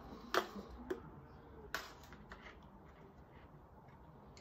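A few sharp plastic clicks and taps, the two loudest about a second and a half apart, from acrylic templates and a pen being handled on vinyl herringbone floor tiles.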